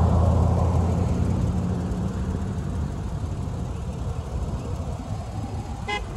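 A Chevrolet pickup truck passes close by, its engine hum fading away over the first few seconds into the even tyre noise of the cars behind it. A car horn gives short toots near the end.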